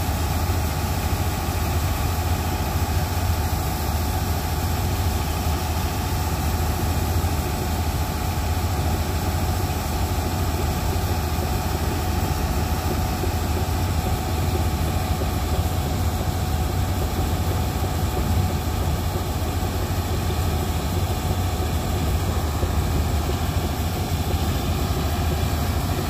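Combine harvester's diesel engine running steadily while its unloading auger empties threshed paddy rice into a trolley: a constant low hum with a faint steady whine over it.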